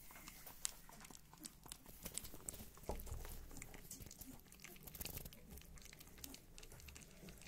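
Three-week-old puppy eating soft food from a plastic tub: a faint, irregular run of small licking and smacking clicks.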